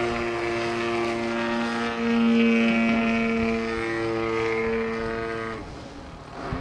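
O.S. 33 cc single-cylinder gasoline two-stroke engine and propeller of a radio-controlled Extreme Flight MXS aerobatic plane running steadily in flight, fitted with a canister muffler. The engine note swells a little about two seconds in and falls away sharply near the end.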